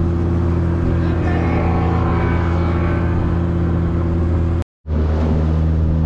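A fishing boat's engine running steadily under way at sea, a constant low drone with a rush of wind and water over it. The sound cuts out completely for an instant about three quarters of the way through, then carries on.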